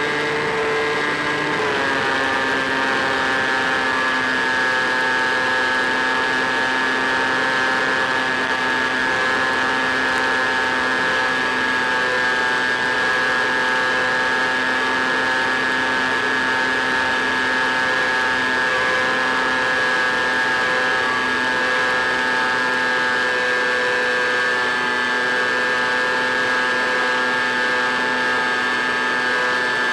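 Electric motor and pusher propeller of an EasyStar RC plane running steadily in flight, picked up by the onboard microphone: an even buzzing whine over a steady hiss. About two seconds in, the pitch drops a step as the throttle is eased back, and then it holds.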